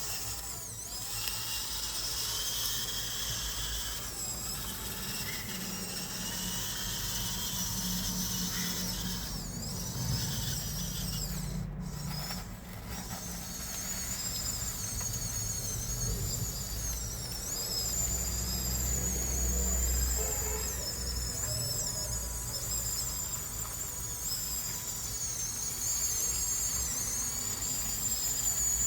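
Huina 1554 radio-controlled bulldozer's electric drive motors and gearboxes whining at high pitch, wavering up and down as it works, over a low rumble.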